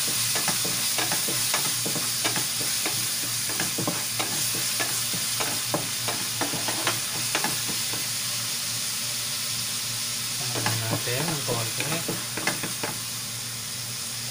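Chopped onion and garlic sizzling in hot oil in a nonstick wok, stirred with a wooden spatula that knocks and scrapes against the pan. The spatula strokes come thick and fast at first, thin out past the middle and return in a short flurry near the end.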